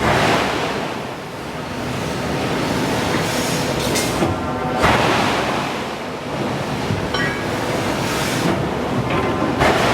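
Loud, steady rushing noise of forge-shop machinery at work, swelling into a louder surge about halfway through and again near the end, with a brief squeal in between.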